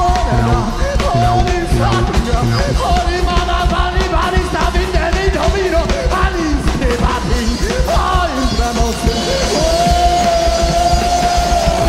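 Live music from a trio of drums, trumpet and electronics: a fast, even pulsing beat with a man's voice singing over it, holding one long note from a little past two-thirds in.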